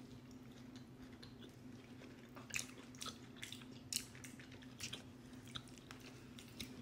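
A person biting and chewing a bite of apple crunch pie cookie, close to the microphone: faint, irregular mouth clicks, a few sharper ones in the middle, over a steady low hum.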